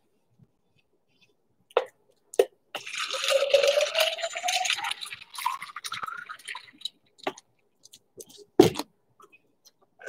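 Water poured into a glass for about four seconds, the pitch of the pour rising steadily as the glass fills. Two short clicks come just before it and a single loud knock near the end.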